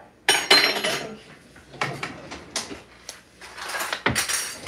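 Kitchen clatter of dishes and utensils: a loud clatter with a brief ring just under a second in, then several lighter knocks and clicks.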